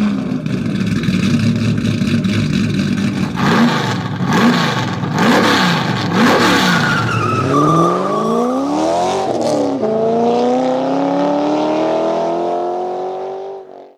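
Car engine revving: the revs swing up and down several times, then climb steadily through the gears, with a shift about ten seconds in, before fading out.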